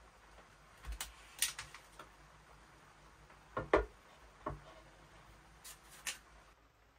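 A few scattered short knocks and clicks of small objects being handled, the loudest a close double knock about three and a half seconds in.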